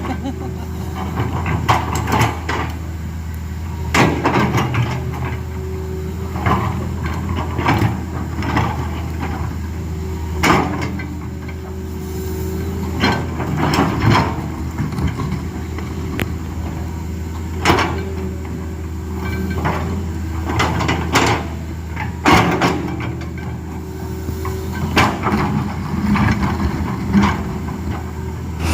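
Excavator's diesel engine running steadily, with repeated irregular clanks and scrapes as the bucket digs into rock and stones.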